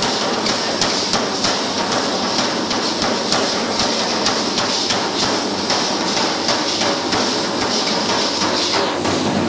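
Matachines dancers dancing: sharp clacks in a steady rhythm, about three a second, over the continuous rattle of their hand rattles and fringed costumes; the rattling thins out near the end.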